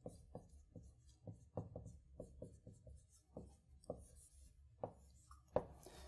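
Marker writing on a whiteboard: a faint run of short, quick strokes and taps, about three a second, as letters are written and boxed.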